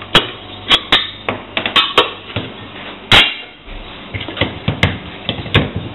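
Stainless-steel mixing bowl of a KitchenAid stand mixer clanking as it is taken off the mixer and set down on a steel counter: a string of sharp metal taps and knocks, the loudest about three seconds in.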